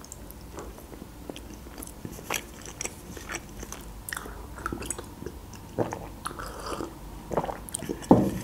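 Close-miked mouth sounds of someone biting and chewing the milk-chocolate shell of a Kinder Surprise egg: small clicks and crunches, with a few louder wet smacks near the end.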